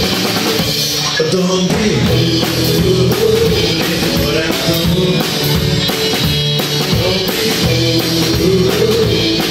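Rockabilly band playing live, driven by a stand-up drummer's snare drum and crash cymbal beating steadily under the rest of the band.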